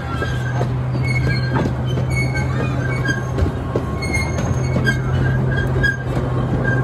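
Open-air park ride train rolling along its track: a steady low running hum, with short high wheel squeals and scattered clicks from the wheels on the rails.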